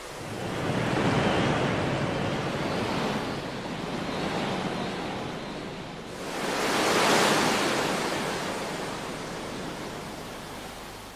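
Sea waves breaking and washing up a beach, a rushing surge that swells twice: once about a second in, and louder about seven seconds in.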